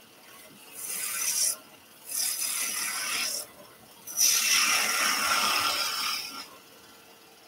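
Turning gouge cutting spinning wood on a lathe, taking three hissing cuts of shavings, the last the longest and loudest.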